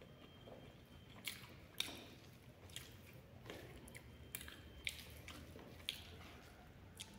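Faint sounds of eating rice by hand: fingers mixing and squishing rice against a plate, with chewing and a soft click or smack every second or so.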